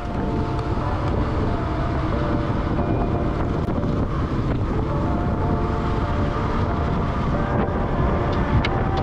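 A motor vehicle running steadily on the move, its engine rumble mixed with wind buffeting the microphone.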